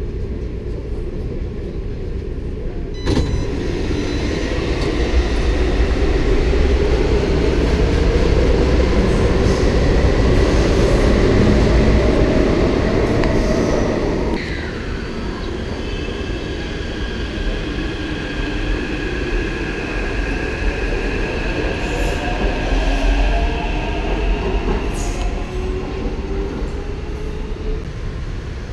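Taipei Metro train noise: a rumble that swells for about ten seconds. After a sudden change about halfway, a train's electric motors give rising whines as it pulls away from the platform.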